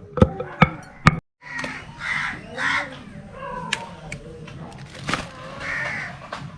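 A few sharp knocking strikes of hand-pounding in a mortar, then a brief dropout, followed by about three harsh crow caws over a faint hiss.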